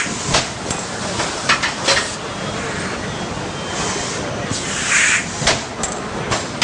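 MX-14G automatic thermoforming and stacking machine running: a steady mechanical din broken by several sharp clacks and by bursts of hissing near the start and about five seconds in.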